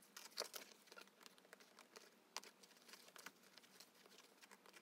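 Scissors cutting through a sheet of cork board: faint, irregular crisp snips and clicks, several a second.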